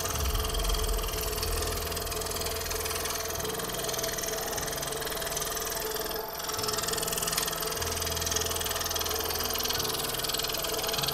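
Scroll saw running steadily, its reciprocating blade cutting through a wooden jigsaw puzzle board, with background music playing under it.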